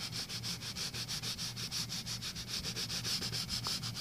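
Pencil scratching on paper in rapid, even back-and-forth shading strokes as an area of a drawing is colored in.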